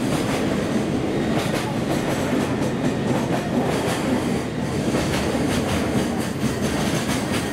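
Container wagons of a long freight train rolling past at speed: a steady rumble of wheels on rail with faint repeated clicks.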